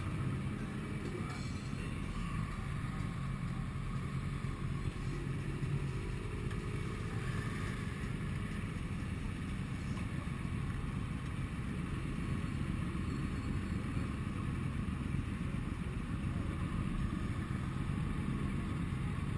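Motorcycle engines running steadily in a slow-moving group ride, the rider's own sport bike nearest, with the surrounding motorcycles around it.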